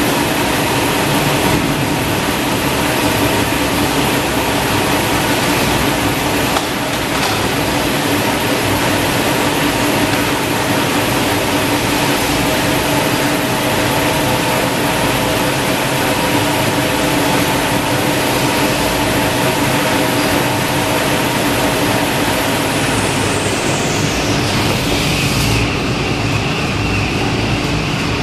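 Paper roll production line running: a loud, steady mechanical din with several steady hums, and near the end a high whine that falls in pitch and drops away.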